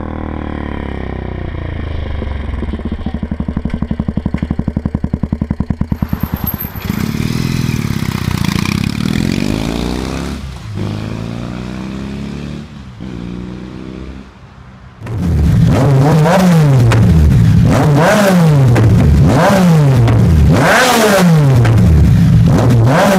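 Three motorcycle exhausts in turn. First a Suzuki Savage LS650 single-cylinder with a Harley-Davidson carburettor and Raask exhaust, its exhaust pulses quickening. Then a Triumph T100 twin with an aftermarket exhaust, which fades low; then, from about fifteen seconds in and loudest, a Yamaha MT-09 three-cylinder with an Akrapovič exhaust revved over and over, its pitch rising and falling about once a second.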